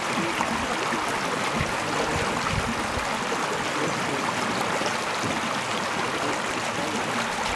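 Shallow stream flowing over stones, a steady rushing and babbling of water.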